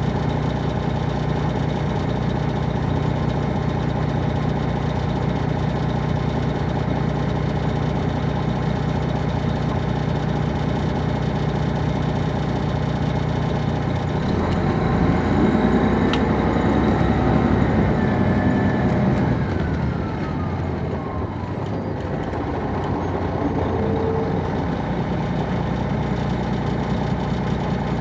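Detroit Diesel Series 60 diesel engine of a 2002 MCI D4500 coach, heard from inside the bus, idling steadily. About halfway through it runs louder for several seconds, with a whine that falls in pitch, then settles back to a steady idle.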